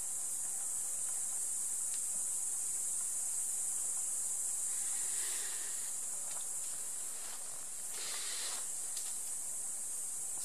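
Steady high-pitched hiss of meadow insects stridulating. Two short breathy rushes of noise stand out about five and eight seconds in.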